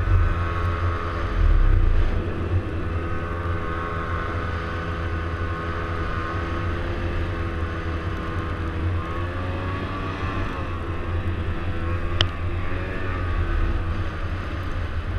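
Snowmobile engine running under throttle while riding through snow, its pitch rising and falling as the throttle is worked.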